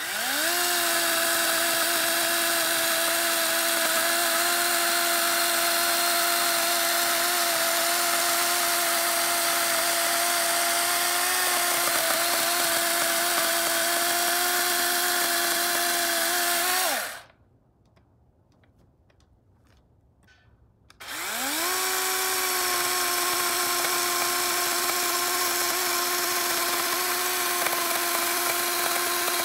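DeWalt DCCS620 20V brushless battery chainsaw spinning up and cutting through a walnut log with a steady motor whine. About 17 seconds in it winds down and the sound drops to near silence for about four seconds, then it spins up again and cuts on.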